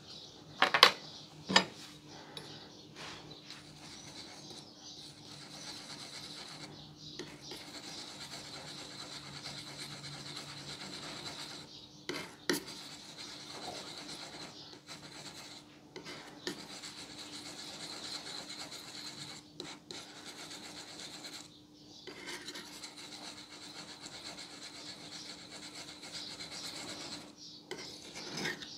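Metal palette knife scraping and smearing thick paint on a hard surface as the colours are mixed: a steady rasping rub broken by short pauses. Two sharp knocks come about a second in and another near the middle, over a faint steady hum.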